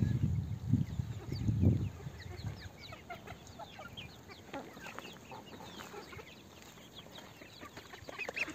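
A flock of chickens clucking and chirping while feeding, many short calls. A couple of low thumps in the first two seconds are louder than the birds.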